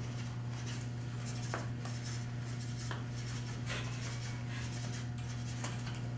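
Red felt-tip marker dabbing dots onto chart paper: short scratchy squeaks about two a second, with an occasional sharp tick of the tip on the paper, over a steady low hum.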